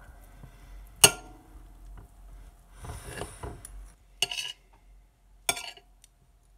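Knife and fork clinking and scraping against a plate while cutting food: a sharp clink about a second in, a scrape around three seconds, then two more clinks.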